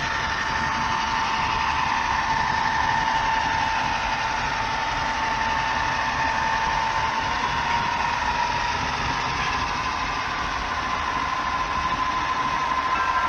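HO-scale model diesel locomotive running with a steady diesel engine sound and a high whine that rises slightly in pitch about eight seconds in.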